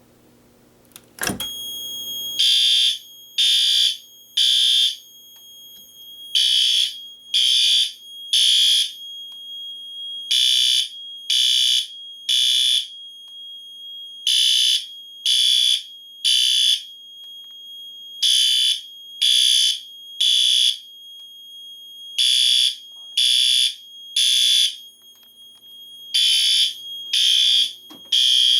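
A sharp click about a second in as an Edwards 270-SPO manual pull station is pulled, then the fire alarm horns sound the temporal-three evacuation pattern: three high-pitched beeps, a pause, repeating about every four seconds.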